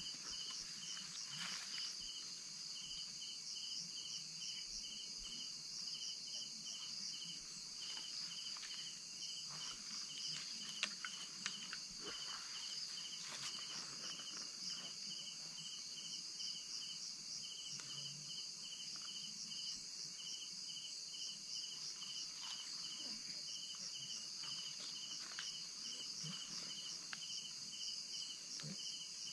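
Night insects chirring without a break: a high, steady chorus over a lower, rapidly pulsing trill. A couple of brief ticks come near the middle.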